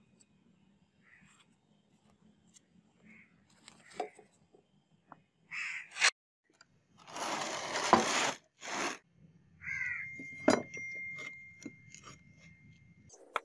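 Crows cawing several times, among scattered sharp clicks and knocks. A loud rushing noise lasts about a second and a half just past the middle. A thin steady high tone holds through the last few seconds.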